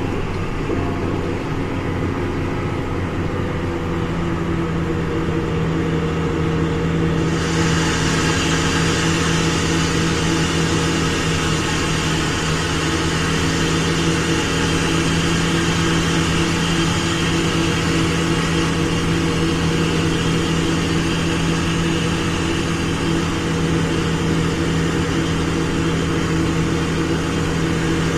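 Large farm diesel engine running steadily under power. About seven seconds in, a louder high whirring hiss joins it and carries on.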